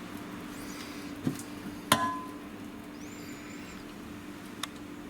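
Kitchen utensil knocking against a mixing bowl: a sharp clink with a brief ring about two seconds in, and a couple of fainter taps, over a steady low hum.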